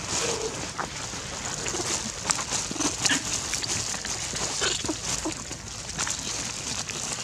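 Plastic bag rustling and crinkling in irregular crackles as young macaques and a hand rummage through a backpack for food, with a few short, faint animal calls.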